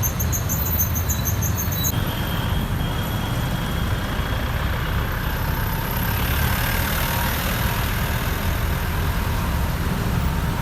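Road traffic: a steady rumble of car, bus and truck engines. A rapid, high-pitched chirping runs over it and stops abruptly about two seconds in.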